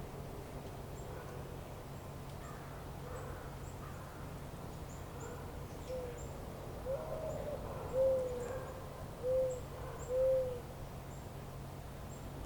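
A bird's low hooting call: a few soft notes from about six seconds in, then three louder hoots about a second apart. A steady low rumble and faint high chirps run underneath.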